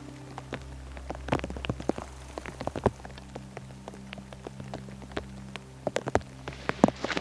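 Rain falling, heard as a steady wash with many irregular, sharp ticks of single drops striking close by.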